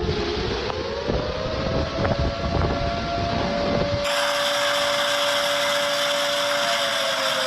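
Outdoor tornado warning siren wailing in one long held tone that slowly rises early on and falls near the end. Wind buffets the microphone during the first half, then stops abruptly about four seconds in while the siren carries on.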